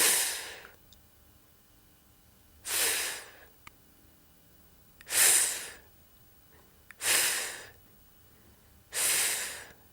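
A woman's voice making the voiceless "fff" sound of the letter F, five separate breathy hisses of under a second each, evenly spaced about two seconds apart.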